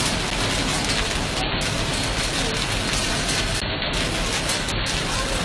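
Hail and rain falling steadily onto paving, heard as a dense, even hiss of many small hits.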